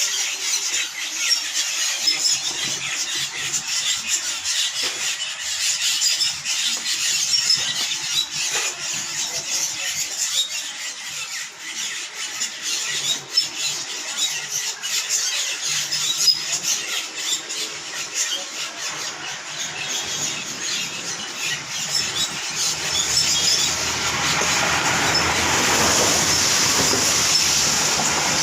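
A large flock of small birds chirping and calling together in a dense, continuous chatter. About three-quarters of the way through, a steady rushing noise rises under the calls.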